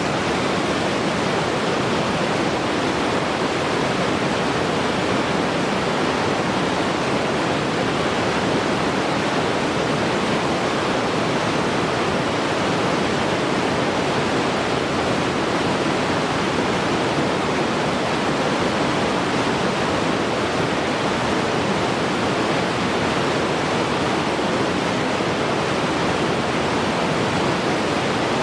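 Flachan River, a Himalayan mountain river, rushing and gurgling over rocks in a steady, loud rush of water.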